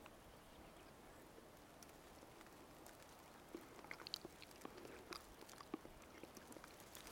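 Near silence: faint outdoor quiet with scattered small clicks and ticks over the second half.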